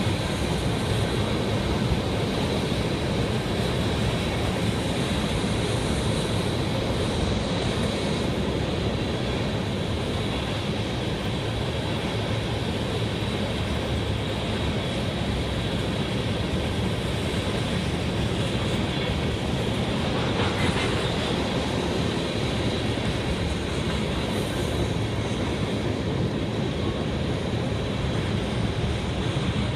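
A long train of black tank cars rolling past, with a steady rumble of wheels on the rails.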